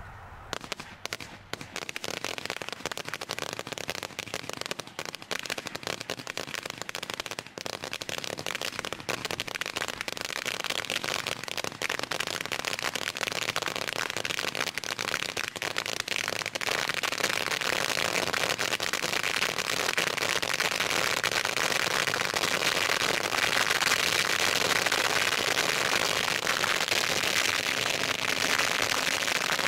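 A hanging roll of 1.5-inch Tai Chi flash firecrackers going off: a few separate cracks at first, then an unbroken, rapid string of bangs that grows louder and denser from about halfway through.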